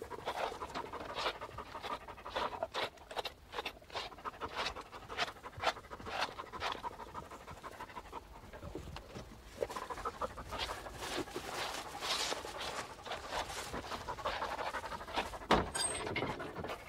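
A long-haired black-and-tan hunting dog panting quickly and evenly, hot from work in the field. A single sharp knock about a second before the end.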